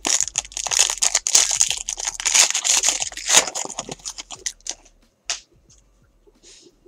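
Foil wrapper of a 2014 Elite Extra Edition baseball card pack being torn open and crinkled, a dense crackling rustle for about four seconds. A few brief rustles follow as the cards are slid out.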